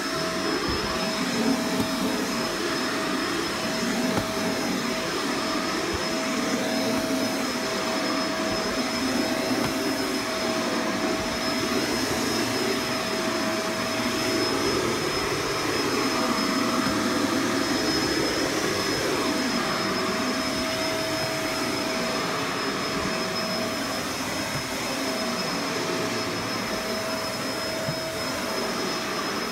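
Vacuum cleaner running without a break, with a steady high whine over a rushing air noise. The lower part of the rush swells and fades every few seconds, as the cleaner is worked back and forth over carpet.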